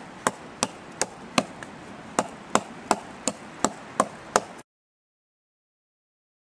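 Axe strokes chopping into a hard log, about a dozen sharp blows in a steady rhythm of roughly three a second. It cuts off suddenly about four and a half seconds in.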